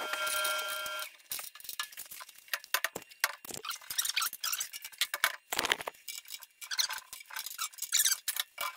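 A wrench loosening the 13 mm bolts on a snow blower auger bearing flange: a ringing metallic tone for about the first second, then a run of irregular metal clicks and clinks.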